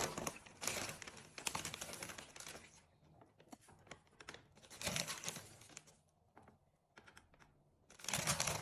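Rustling and sharp plastic clicks of a washing machine's detergent drawer being handled, in irregular bursts with short quiet gaps.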